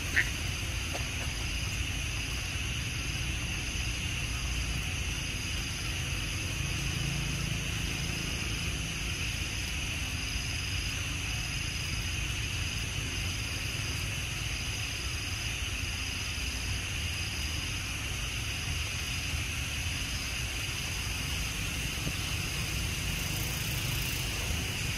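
Outdoor wildlife ambience: a steady high-pitched buzzing of insects, one strand of it pulsing a little faster than once a second, over a constant low rumble. A single sharp click comes just after the start.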